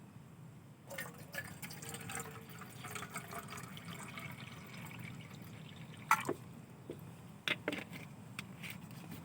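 Liquid being poured into a container from about a second in, followed by a few sharp clicks and knocks.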